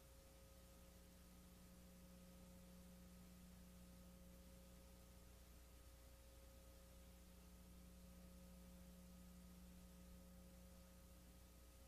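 Near silence: a faint steady electrical hum under a low hiss, with no change throughout.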